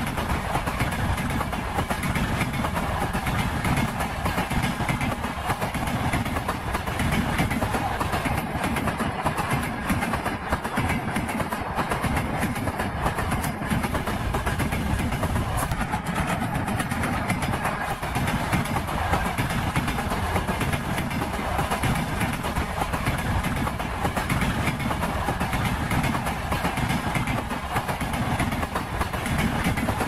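Wheels of a passing train knocking on the rail joints, steady and unbroken.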